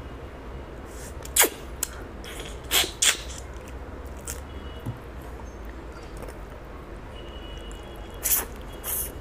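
Mouth noises of a man eating fish curry and rice by hand: a few short, sharp sounds at the lips, about a second and a half in, twice around three seconds, and twice near the end, over a low steady hum.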